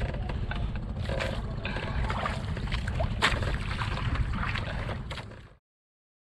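Wind buffeting the microphone over water noise on a small outrigger boat at sea, with a few sharp clicks; it fades out into silence about five seconds in.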